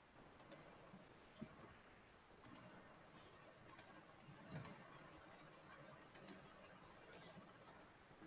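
Faint sharp clicks, mostly in quick pairs, about five times over near silence: computer mouse clicks.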